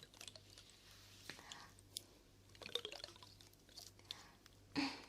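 Faint scattered clicks and soft handling noises close to a sensitive microphone, over a low steady hum, with a louder rustle near the end.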